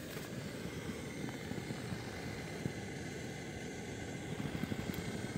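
Small canister gas camp stove burning steadily under a metal mug, a rumbling, fluttering hiss with a faint steady high tone on top.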